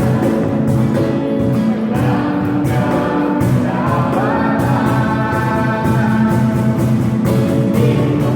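A Christian praise and worship song: voices singing together over a band with a steady beat.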